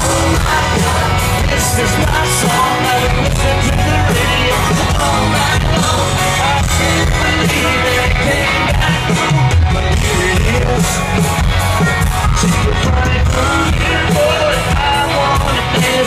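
Live country-pop band playing loudly through a concert sound system, with a lead vocal sung over the band and a heavy bass.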